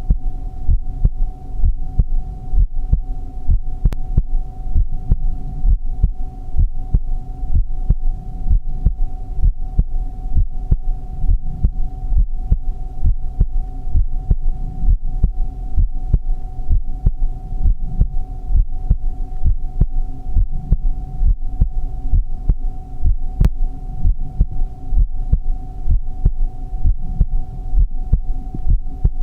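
Human heartbeat beating steadily: low thumps in an even, repeating rhythm, with a steady hum underneath.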